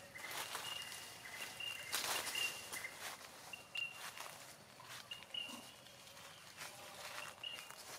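Dry leaf litter rustling and crunching in irregular bursts as macaques move over the forest floor, with short, high chirping calls now and then.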